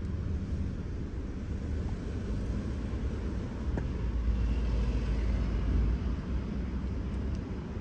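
Low, steady mechanical rumble, growing a little louder about halfway through.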